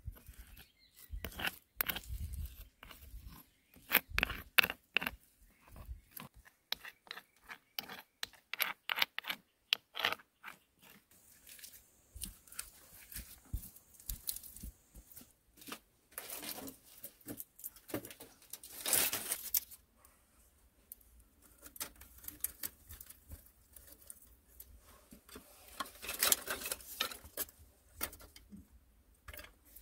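Close hand-work sounds: quick clicks, scrapes and crunches of mud and stone being pressed into place, then dry sticks rustling and knocking together as they are laid over a small fire.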